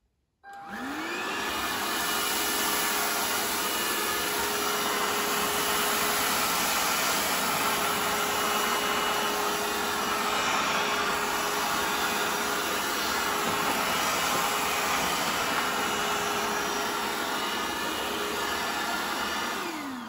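Hoover H-Free 100 cordless stick vacuum switching on with a rising whine about half a second in. It runs steadily while sucking scattered couscous off a carpet, then winds down with a falling whine near the end.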